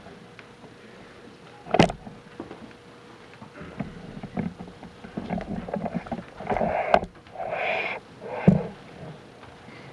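A small group of people greeting one another at close range: indistinct low voices and shuffling, busiest in the second half. Two sharp thumps, about two seconds in and again near the end, the second the loudest.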